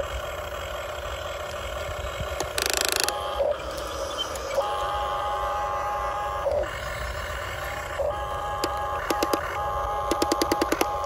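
Electric motors and gearboxes of a Huina RC excavator whining in stop-start runs as its arm and tracks move. There is a short hiss about two and a half seconds in and a quick run of clicks near the end.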